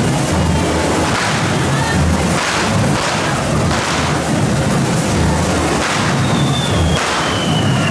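Correfoc fireworks: hand-held fountains and firecrackers hissing and crackling in repeated bursts over a steady low drumming. About six seconds in, a long whistle starts and falls slowly in pitch.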